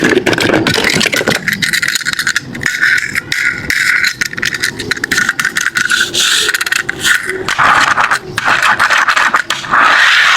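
Tomica die-cast toy cars scraping and rattling, a dense run of quick clicks with a steady scraping hiss under them.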